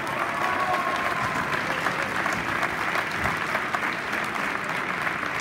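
Audience clapping steadily for a senior being introduced, with a few faint voices heard over it.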